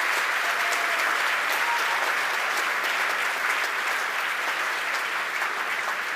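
Crowd applauding in answer to the start of the Falcon 9 first stage's entry burn, the clapping slowly dying down.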